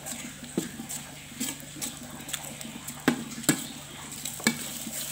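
Metal spatula scraping and knocking against a metal wok as eggs are scrambled into fried spice paste, with a faint frying sizzle underneath. It gives irregular sharp clacks about every half second to second, the loudest two a little after three seconds in.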